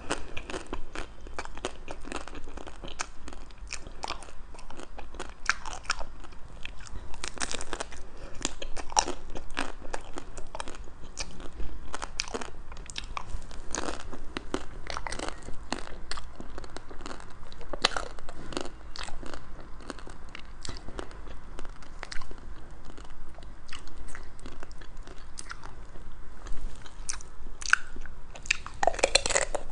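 Close-miked biting and chewing of chocolate-coated ice cream bars, the hard chocolate shell breaking in many small, sharp, irregular crunches.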